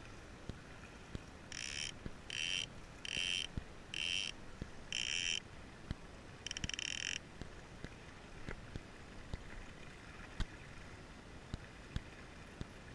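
A fishing reel's drag buzzes in six short bursts over a few seconds, the last one a fine ratchet: a hooked yellowfin tuna is pulling line off against the drag. Faint knocks are heard throughout.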